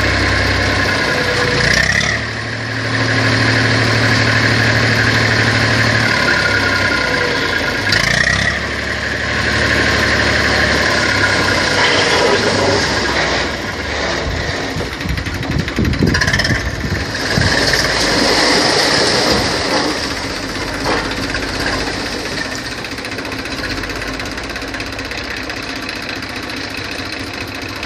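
Farm tractor's diesel engine running with a tipping trailer's bed raised, its note rising and dipping, with a few short knocks about eight and sixteen seconds in.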